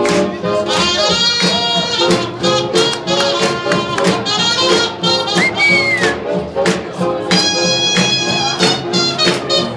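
Swing jazz music playing loud, with a steady beat and horn lines on top.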